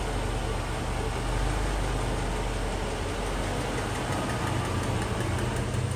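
Mercedes-Benz 560 SL's V8 idling steadily just after a cold start, heard with the hood open.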